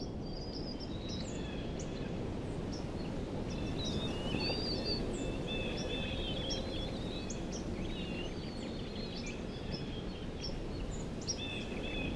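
Several songbirds chirping and trilling in a forest, many short calls overlapping, over a steady low rushing background.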